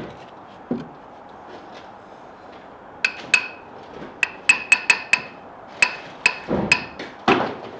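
Hammer tapping a steel bearing plate to bed it level in fresh mortar: about a dozen sharp, ringing metallic taps in irregular groups, starting about three seconds in.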